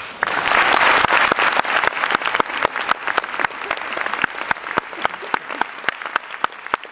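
Audience applauding in a concert hall, a dense burst of clapping that swells sharply at the start and then thins out into scattered claps toward the end.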